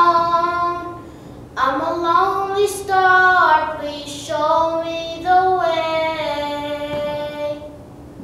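A boy singing a slow song unaccompanied: a held note, then two sung phrases, the last ending in a long held note that dies away near the end.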